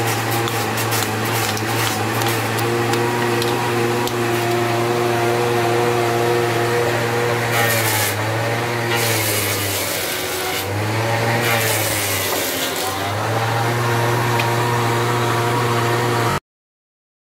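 Electric motor of a woodworking machine running with a steady hum; around the middle it dips in pitch a few times under bursts of hissing as it works wood. The sound cuts off suddenly near the end.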